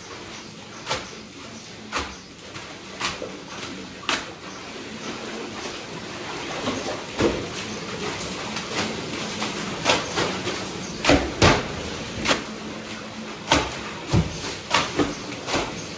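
Wet block-printed Ajrakh cloth being swung and slapped down onto water and the tank's concrete ledges by several washers, irregular sharp slaps about once a second, over steady rushing and splashing water.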